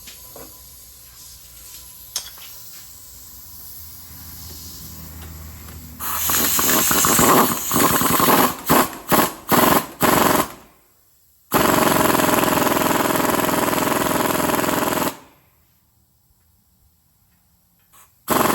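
Pneumatic air tool hammering in rapid bursts on the stuck hub bearing press setup. After a few quiet seconds, several short bursts come in quick succession, then one steady run of a few seconds, a pause, and another burst near the end.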